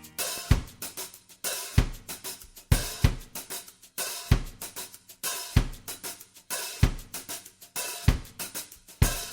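Background music: a drum-kit beat on its own, a bass-drum hit about every 1.25 s with hi-hat ticks and snare hits between.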